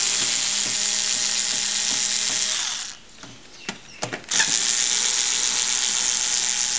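Bosch cordless electric screwdriver running as it backs screws out of the bottom of a TRS-80 Model III's case, a steady motor whine with the gearing. It stops just before 3 s in, a few clicks follow as the bit is set on the next screw, and it starts again about 4.4 s in.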